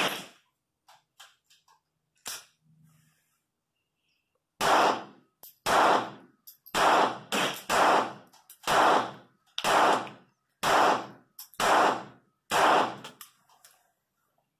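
A .25 ACP pocket pistol fired: one shot at the start, then after a pause a string of nine shots at about one a second, starting a little over four seconds in. Each shot is sharp with a short echo.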